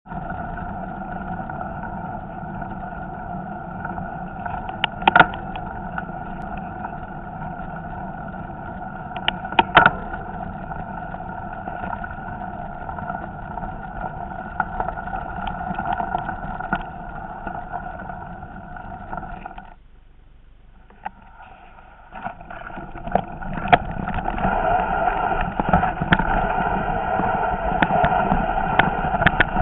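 Mountain bike rolling down a gravel track, heard through a handlebar-mounted camera: a steady buzz with occasional sharp knocks from bumps. About two-thirds of the way in it drops away for roughly two seconds, then returns louder and busier with rattling as the track turns rocky.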